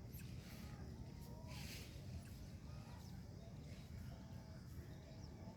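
Faint outdoor ambience: a steady low rumble with a few short, distant bird calls, and a brief rustle about a second and a half in.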